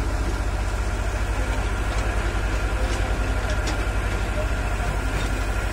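Hydraulic excavator's diesel engine running steadily at a constant speed, with a low, even throb.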